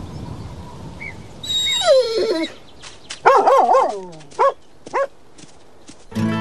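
Cartoon collie vocalizing: a falling whine about a second and a half in, then a quick run of barks and two short single barks.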